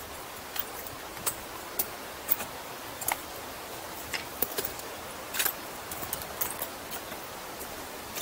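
Footsteps clicking and crunching on loose broken rock and shale, irregular steps about one or two a second, over a steady background hiss.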